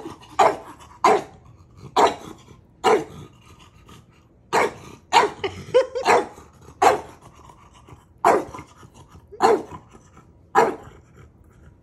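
French bulldog giving play barks: about a dozen single, sharp barks, roughly one a second, with a short pause partway through.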